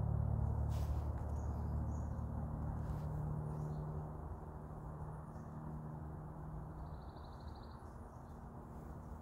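Woodland ambience: a low, steady rumble that fades away over several seconds, with a few faint high bird chirps and a short rapid trill about seven seconds in.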